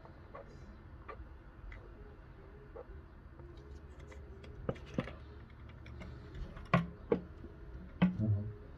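A plastic bottle and its screw cap, with a syringe fitted through it, being handled. Light scattered plastic clicks come first, then a few sharper knocks and clacks in the second half.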